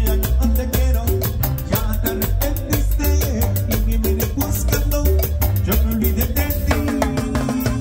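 Live band playing amplified Latin dance music close to the stage speakers: a fast, steady beat over heavy bass, with held chords near the end.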